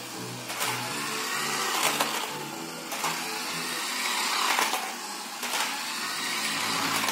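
Toy Lamborghini RC car's small electric drive motor whirring as the car drives, rising and falling with the throttle, over background music with a steady beat.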